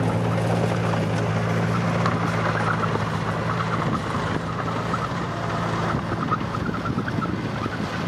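Diesel engine of a small loaded dump truck running at a steady speed as it drives off over rough dirt, with light irregular clattering from about two seconds in.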